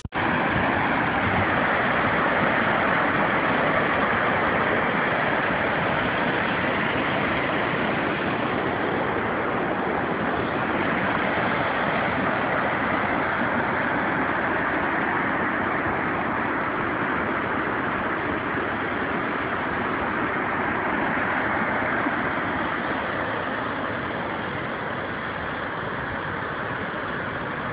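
Floodwater rushing down a dam's concrete spillway: a steady, even rush of water that eases slightly near the end.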